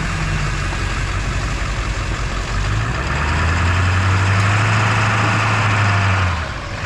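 Recovery truck's engine running steadily. A deeper drone builds about three seconds in and drops away near the end.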